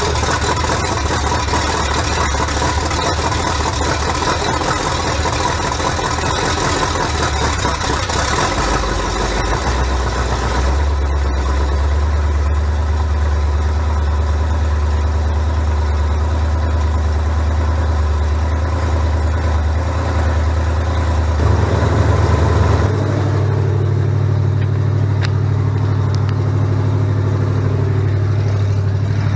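Freshly rebuilt carbureted V8 engine idling steadily. About three-quarters of the way through, the engine note rises and holds at a higher idle.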